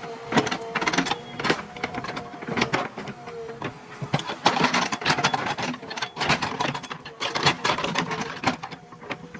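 JCB 3DX backhoe loader at work: the diesel engine runs under a steady faint whine while the bucket and arm give off irregular clanks and knocks.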